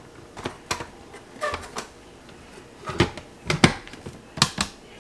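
Hard plastic parts of an Aukey Home ice cream maker clicking and knocking as the lid with its motor head and paddle is fitted onto the freezer bowl: a scattered series of short, sharp clicks, more of them in the second half.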